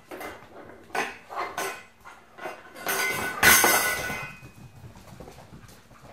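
Small stainless steel bowl clattering on a wooden floor as puppies knock it about: a few clanks in the first two seconds, then a longer, louder rattling clatter with metallic ringing about three to four seconds in.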